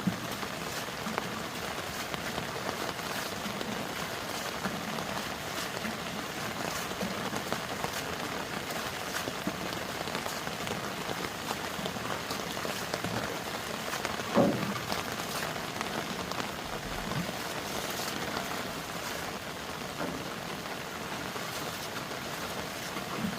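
Heavy rain falling steadily, with one louder knock about fourteen seconds in.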